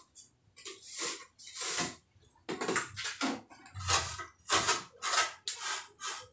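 Plastering trowel scraping and spreading wet cement plaster across a concrete hollow-block wall in short, rasping strokes, about two a second.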